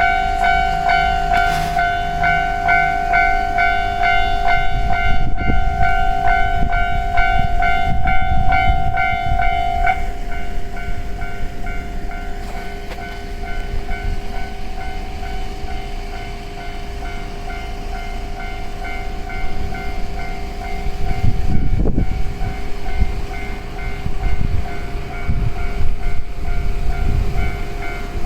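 Japanese level-crossing warning bell ringing in a steady repeating electronic clang. A train rumbles past over the crossing twice: once in the first half and again near the end.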